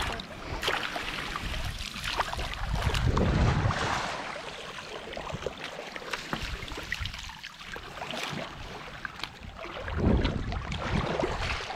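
Water splashing and sloshing around a small fishing boat while a net is hauled in, with wind on the microphone; the noise swells twice, with scattered light knocks and ticks.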